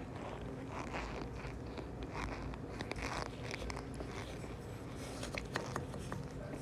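Cornstarch crunching: a steady run of short, crisp crunches.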